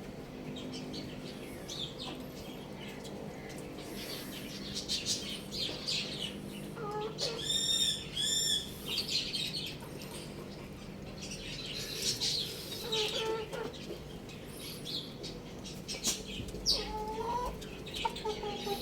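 Mixed bird calls from chickens and small birds: a run of short high chirps throughout, two loud shrill calls about eight seconds in, and lower gliding fowl calls that come and go.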